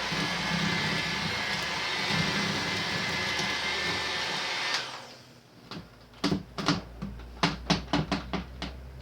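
Small electric food chopper running steadily as it chops cranberries, then cutting off about four and a half seconds in. After it stops come a quick series of sharp knocks and clicks, about a dozen in three seconds.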